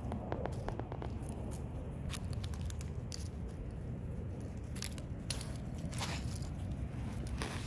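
Irregular crackling and crunching of dry leaves, bark mulch and shrub twigs as dogs nose and paw into boxwood bushes, over a steady low rumble.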